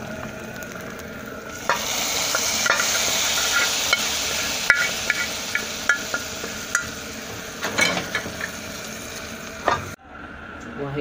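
Garlic and coriander frying in hot ghee, then a sudden loud sizzle about two seconds in as the hot tasha is poured onto the cooked spinach, fading slowly, with a metal spoon clinking against the pot several times. The sound cuts off abruptly near the end.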